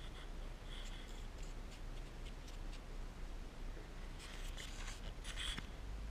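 Scratchy rubbing and snuffling as a tiny kitten's nose, whiskers and fur brush right against the microphone, with a short squeaky kitten mew about a second in. Scratchy clusters come around four seconds in and again near the end, the later one with a brief high squeak.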